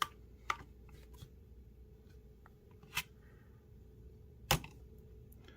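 A few scattered sharp clicks and taps as a metal pocket multitool is handled and set on a scale to be weighed. The loudest tap comes near the end.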